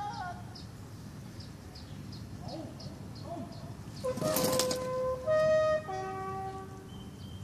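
A bugle sounding a short call of held notes that step between several pitches, starting about four seconds in just after a brief rush of noise.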